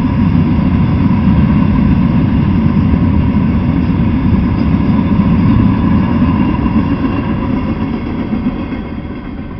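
Freight train of open-top freight cars rolling past at speed: a loud, steady rumble of steel wheels on rail with a thin steady ringing tone above it. Near the end the last car passes and the sound fades away.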